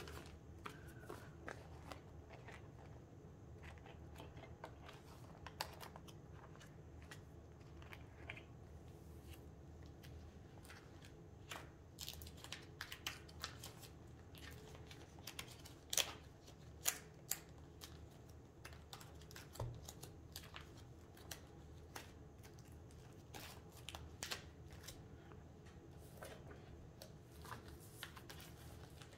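Photocards and plastic binder sleeves being handled: scattered soft clicks and rustles as cards are slid in and out of the pockets and pages are moved, a few sharper clicks about halfway through, over a faint steady low hum.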